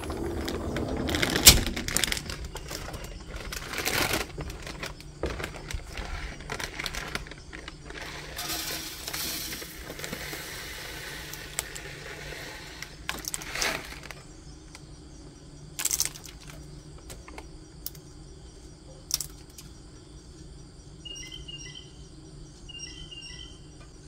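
Plastic bag of bird seed rustling while seed is poured into a window-mounted bird feeder, with clicks and knocks of handling and a few seconds of steady pouring hiss in the middle. Faint short chirps repeat near the end.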